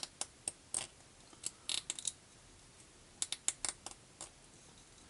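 Light metallic clicks and ticks in irregular little clusters: small metal lock parts and tools being handled while a pin-tumbler challenge lock is taken apart, its pins and springs worked out of their chambers.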